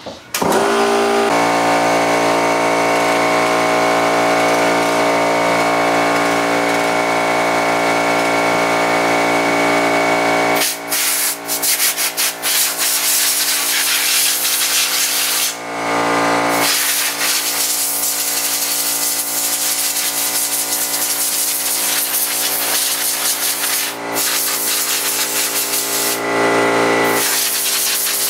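Compressed air hissing hard from an air-hose blow gun, blowing dirt off a 1/5-scale gas RC truck. A steady droning tone runs under the hiss for about the first ten seconds and then stops. The air cuts off briefly twice, about halfway through and again near the end.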